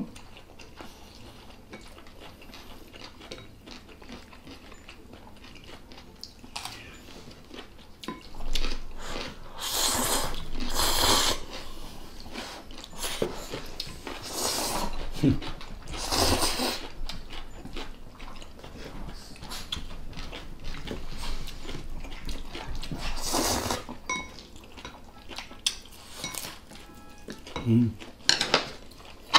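Mukbang eating sounds of Chapagetti instant black-bean noodles: several loud slurps of noodles, with chopsticks and spoons clinking against glass bowls and a metal pan.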